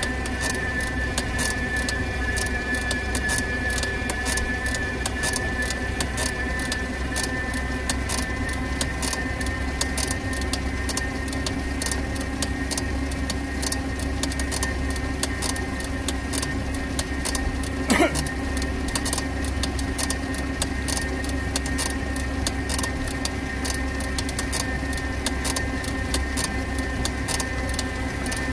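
Inside the enclosed shell of a Better.bike PEBL pedal-electric vehicle riding in rain: a steady electric whine over tyre hiss on the wet road, with raindrops ticking continuously on the canopy. A single sharp click about two-thirds of the way through.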